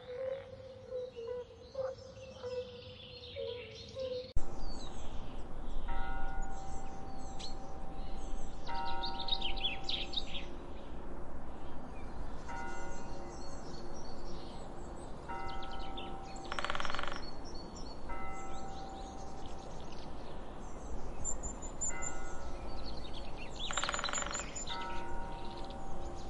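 Birds chirping over a steady tone. About four seconds in, soft background music with sustained, bell-like tones comes in and carries on under the birdsong.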